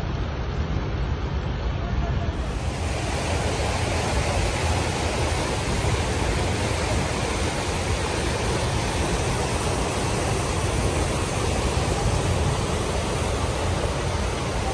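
Fast-flowing floodwater rushing through a street: a steady, even rush of water noise, brighter after a cut about two seconds in.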